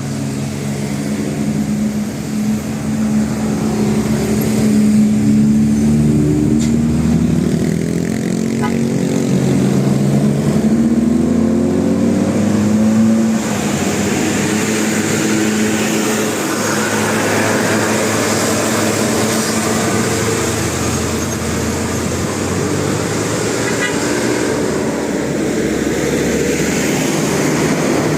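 Bus engine running with a steady pitch, then revving up as it accelerates, its pitch rising from about eight seconds in. Past the middle it gives way to a broader, noisier rush of passing traffic.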